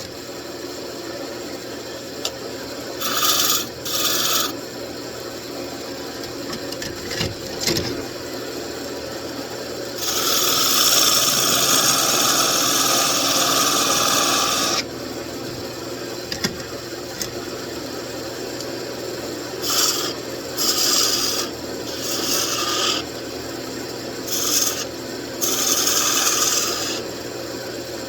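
Wood lathe running with a steady hum while a turning chisel cuts the spinning wood in hissing, scraping passes. There are two short passes a few seconds in, one long pass of about five seconds near the middle, and a quick run of short passes later on.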